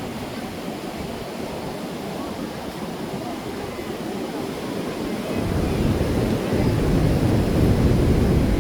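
Ocean surf washing onto a beach, with wind rumbling on the microphone; the rush grows louder from about halfway through.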